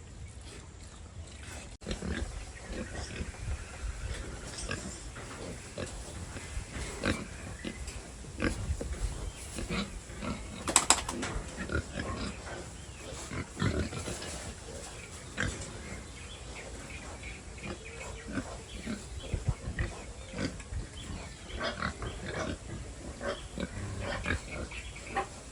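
Pigs grunting in short, irregular grunts, with a louder burst about eleven seconds in.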